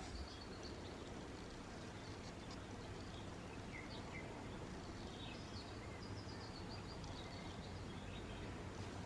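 Steady low background noise with a few faint, short high chirps scattered from about four seconds in.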